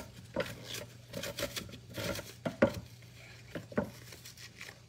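Fingers scooping the seeds and pith out of halved bitter melon (ampalaya) on a wooden cutting board: a string of soft, irregular scrapes and small taps.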